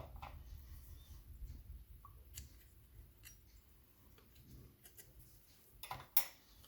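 Light, scattered clicks and small scrapes of lock levers and spacers being lifted out of a 5-lever mortice lock by hand, with a couple of sharper clicks near the end.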